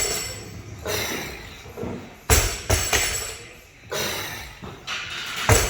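Loaded barbell clanking as it is set down and picked up, a few sharp metallic strikes seconds apart, over background music.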